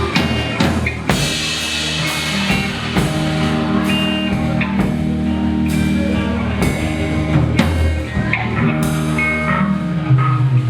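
Rock band playing an instrumental passage without vocals: a drum kit with frequent sharp hits over sustained guitar chords.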